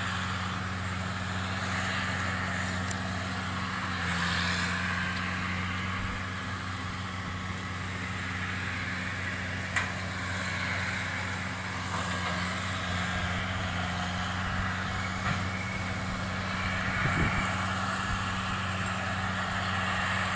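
JCB Fastrac 3200 tractor running steadily while pulling a round baler through oat straw, its diesel engine droning at an even pitch with the baler working behind it. A sharp click comes about ten seconds in and a short low knock about three-quarters of the way through.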